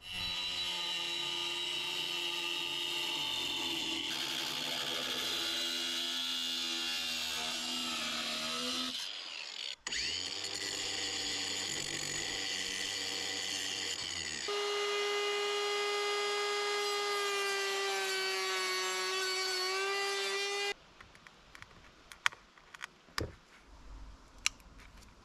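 Cordless angle grinder running and cutting a metal plate, a steady whine heard in a few edited stretches; in the first its pitch sags under load before it breaks off, and the last stops abruptly. After that, a few light taps of a hand chisel on wood.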